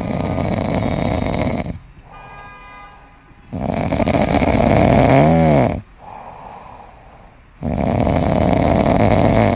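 Loud snoring: three long snores of about two seconds each, with quieter breaths between them. The middle snore has a warbling whistle that rises and falls.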